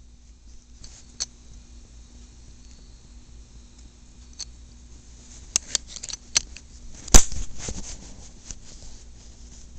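Scattered clicks and rustling from the plastic body and black cord of a vintage Norelco SC 7759 'egg' electric shaver being handled, with the loudest, sharpest click about seven seconds in.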